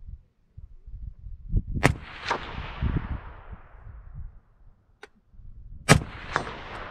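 Two rifle shots about four seconds apart, each trailing off in a long echo with a fainter crack about half a second after it. Low knocks and rustling in between.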